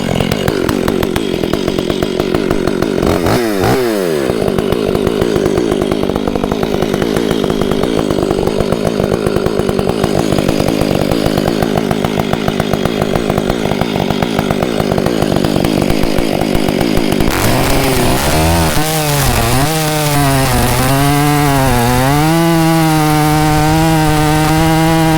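Gas chainsaw running throughout, the engine pitch swinging up and down from about two-thirds of the way in, then held steady near the end. This fits the saw working through the trunk on the felling cut.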